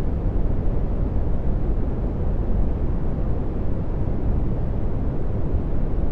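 Dark brown noise: a steady, deep rumbling hiss with most of its energy in the bass and little treble, unchanging throughout.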